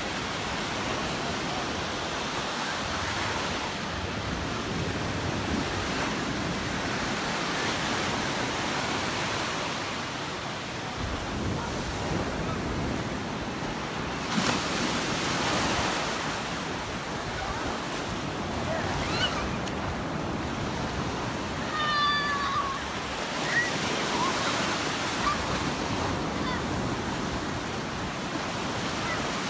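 Gulf surf washing onto the beach, a steady wash of waves that swells and eases, with a few brief high calls in the background near the end.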